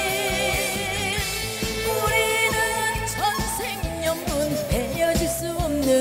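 A woman singing a Korean pop song live into a handheld microphone over instrumental accompaniment with a steady beat. Her voice wavers with vibrato on held notes and glides between pitches.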